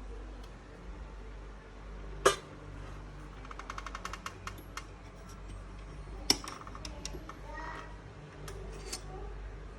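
Sharp clicks and light clinks from handling computer hardware and parts, the loudest about two seconds in and again about six seconds in, with a quick rattling run of ticks between them, over a low steady hum.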